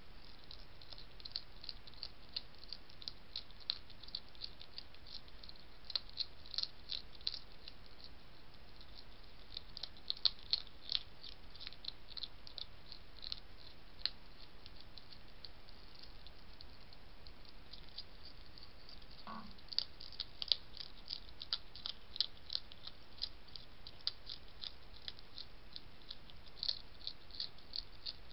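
European hedgehog chewing dry pellet food from a plate: rapid crisp crunching clicks in bursts, with a short lull about two-thirds of the way through.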